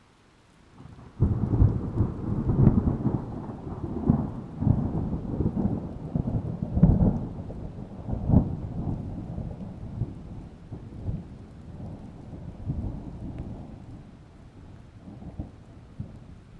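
Thunder: a sudden clap about a second in rolls into a long, low rumble with several louder peaks, then slowly dies away.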